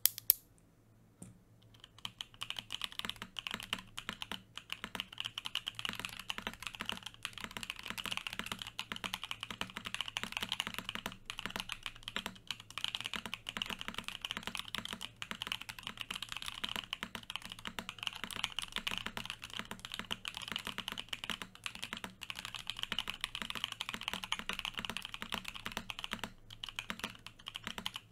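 Continuous, fast typing on an F1-88 mechanical keyboard with an aluminium plate, lubed Musetsu (Snow Fog) switches and Cherry clip-in stabilizers: a dense run of keystroke clacks that starts about two seconds in. A single sharp click comes at the very start.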